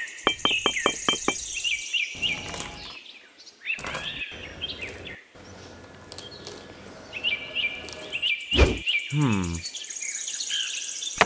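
Small birds chirping over a soft background haze. A quick run of about six clicks comes in the first second, then scattered knocks and rustles as tiny wooden bricks and pebbles are handled and set down, with a single thunk about two thirds of the way through.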